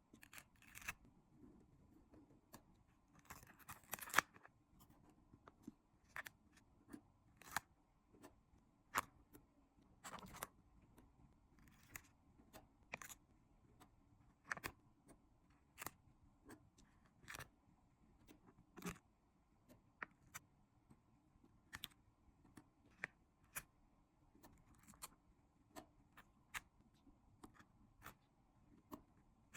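3D stickers being handled: short, sharp clicks and taps at irregular intervals, with a few brief rustling peels, as stickers come off their sheet and are pressed into place.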